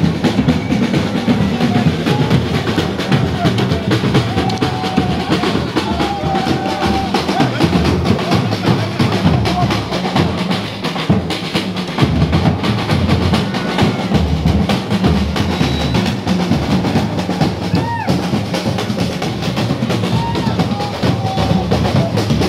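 Drum band playing live, several drums beaten with sticks in a continuous, busy marching beat with rolls, with crowd voices underneath.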